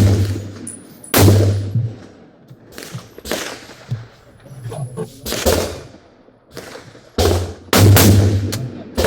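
Rifle shots, about ten at uneven spacing, each with a long echoing tail. The loudest and closest come near the start, about a second in, and as two shots about half a second apart late on; the others are fainter and more distant.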